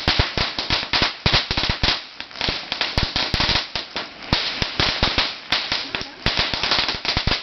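A long string of red paperless firecrackers going off in fast, irregular bangs, several a second, without a break.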